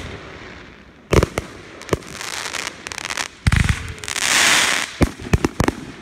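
Fireworks going off: a few sharp bangs, then a louder, deeper boom about three and a half seconds in followed by a long hiss, and a quick run of four bangs near the end.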